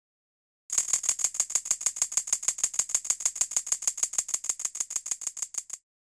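Split-flap display flipping: a fast, even run of dry clicks, about nine a second, that starts about a second in and stops near the end as the flaps come to rest.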